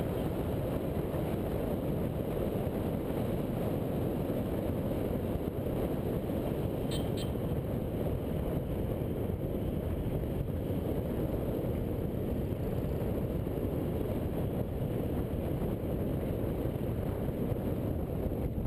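Steady low rumble of wind buffeting the microphone of a camera on a moving motorbike, mixed with the bike's running. Two short, high chirps come about seven seconds in.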